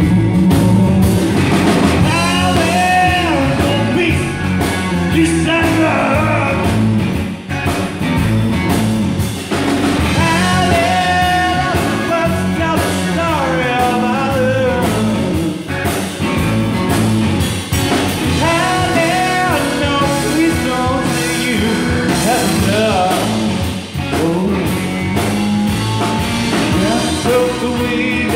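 Live rock band playing: electric guitar, bass guitar and drums, with a male singer's voice over them.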